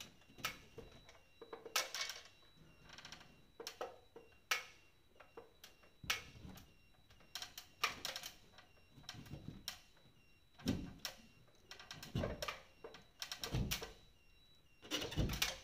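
Butterfly hollow-wall anchors being pushed and tapped by hand into drilled holes in a partition wall board: irregular clicks, taps and knocks, with a few heavier thumps in the later seconds.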